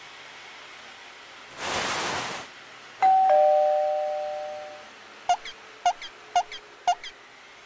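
Synthetic sound effects: a brief whoosh, then a two-note chime, a higher note followed by a lower one, like a doorbell ding-dong, ringing and fading over about two seconds. Then four short high pips about half a second apart.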